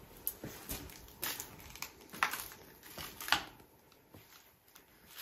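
Footsteps with light crunching and scuffing on the floor, about one every half second, dying away after about three and a half seconds.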